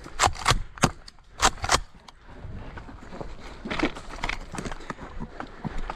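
Airsoft guns firing single shots: about six sharp cracks in the first two seconds, followed by fainter clicks and rustling.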